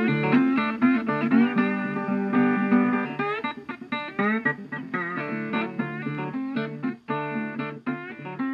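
Background music: a plucked guitar playing a busy run of notes with a few sliding pitches.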